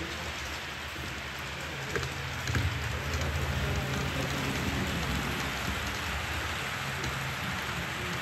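HO-scale model train running along the track: a steady rolling hiss with a low motor hum. The hum grows louder about two seconds in, along with a couple of sharp clicks.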